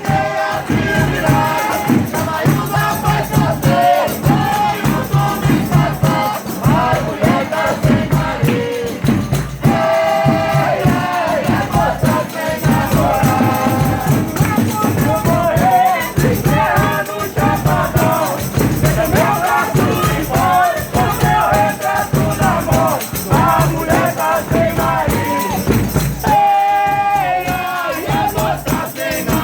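A Folia de Reis ensemble singing a devotional song together, voices carrying the melody over a steady beat with tambourine jingles.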